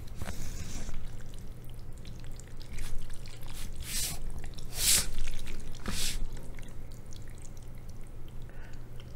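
Jajangmyeon noodles in thick black bean sauce being stirred and lifted with wooden chopsticks in a plastic bowl, making a string of wet squishing sounds, loudest around the middle.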